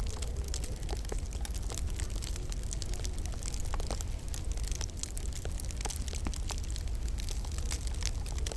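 Wood fire burning in a log burner, crackling with many irregular sharp pops and snaps over a steady low rumble.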